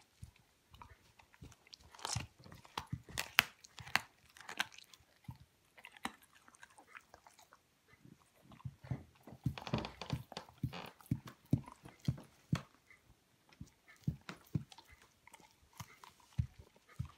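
Young Hamiltonstövare hound biting and chewing a raw chicken leg quarter, with irregular wet crunches as its teeth work the meat and bone. The crunching comes in bursts, loudest about two to five seconds in and again around ten seconds.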